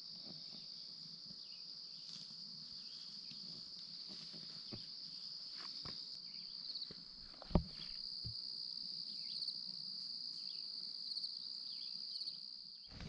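Insects trilling in a steady, high-pitched chorus, with a few faint knocks and one sharper knock a little past halfway.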